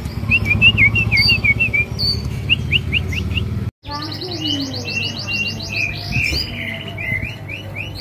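Caged songbirds singing: short, varied chirping phrases for the first few seconds, then, after an abrupt cut, rapid repeated trills.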